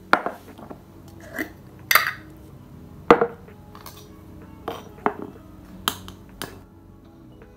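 About eight sharp, irregularly spaced clinks and knocks of dishes being handled on a table, over faint background music.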